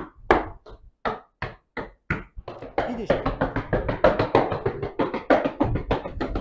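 Boots stamping on a tiled floor in a steady dance rhythm, about three stamps a second. After about two and a half seconds, music comes in with quicker stamping over it.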